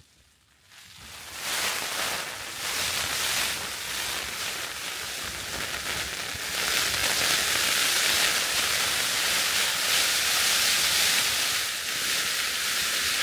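Heavy rain pelting the tent's flysheet, heard from inside the tent. It sets in about a second and a half in and grows heavier from about six seconds, a steady hiss of drops on the fabric.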